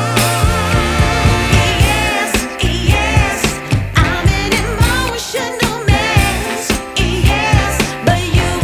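Background music: a pop/soul song with a sung vocal line over a steady beat.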